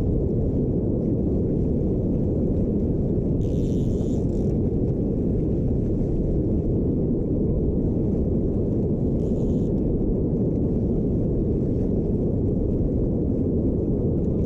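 Wind buffeting the camera's microphone: a steady, dull rumble, with two brief higher hisses about four and nine seconds in.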